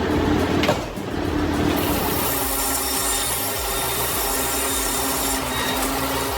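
A large 56-inch circular saw blade running with a steady hum and cutting lengthwise through a cottonwood log. The hiss of the cut is strongest from about two seconds in until shortly before the end.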